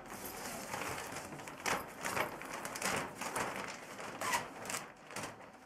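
Heavy 6 mil polyethylene sheeting crinkling and rustling in irregular crackles as an adhesive zipper is worked along it, with a few louder crackles partway through.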